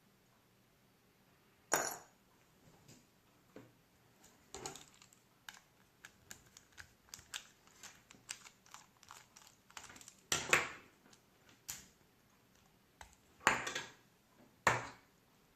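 Irregular light clicks and taps of small hard parts and tools being handled, with a few louder knocks: once about two seconds in and three more in the second half.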